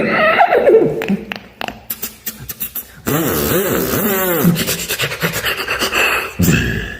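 Beatboxed mouth sound effects: a few clicks and short pitched vocal sounds, then from about three seconds in a loud, raspy, sustained voice sound whose pitch repeatedly rises and falls, with a quick warble partway through.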